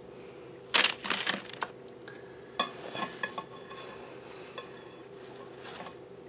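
Fried potato strips being picked out of a paper-lined bowl by hand and dropped onto a paper plate: a few short bursts of rustling and clatter, about a second in, around three seconds and again near the end.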